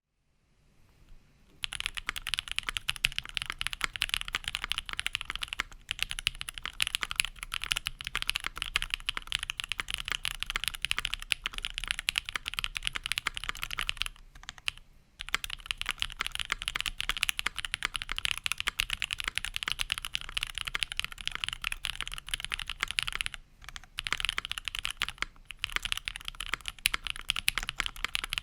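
Continuous fast typing on a Prophet mechanical keyboard with budget 'Creampaca' linear switches (JWK housings, Kailh Pro Burgundy stems, lubed) on a polypropylene plate with a tape mod: a dense, steady patter of keystrokes, which the owner finds a little crunchy. It starts about a second and a half in, with a few short pauses.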